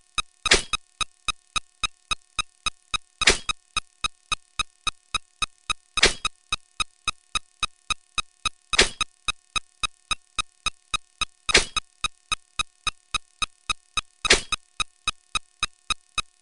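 Electronic sound effects repeating in a fast, steady rhythm: short pitched ticks about three a second, with a louder, longer sound about every three seconds.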